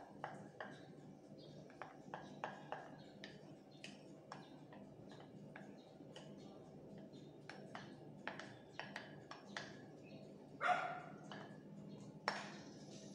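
Silicone spatula scraping and tapping against a glass mixing bowl as thick cream cheese batter is scraped out: a string of small, faint clicks and ticks. Near the end a dog barks, louder than the scraping.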